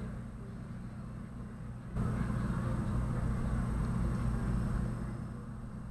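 Steady low electrical hum with background hiss, stepping up in loudness about two seconds in.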